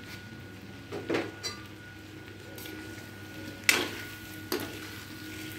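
A spoon knocking and clinking against a wok-style pan while stirring chicken, onions and chili powder: several uneven knocks, the loudest about two-thirds of the way in.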